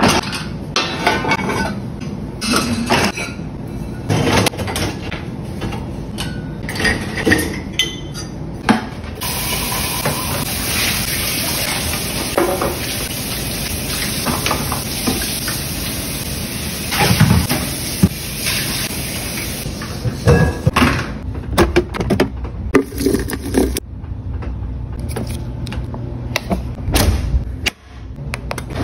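Pots, pans and dishes clattering and knocking as a dishwasher is loaded. Then, for about ten seconds, a kitchen tap runs steadily into a sink full of pots. After that come more scattered clinks and knocks of kitchenware being handled.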